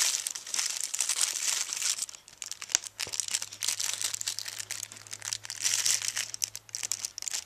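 Thin clear plastic bag crinkling in irregular crackles as hands handle and turn it.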